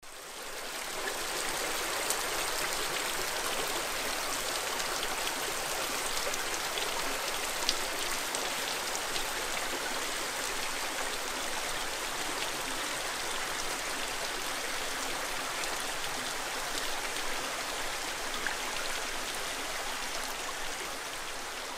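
Water trickling and dripping off a wet rock ledge down a rock face, a steady splashing hiss with a few sharper drips.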